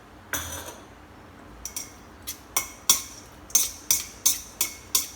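Utensils clinking against a bowl while sliced pig ear is tossed with its fish-sauce dressing. There is one clink near the start, then from about a second and a half in a run of sharp clinks about three a second.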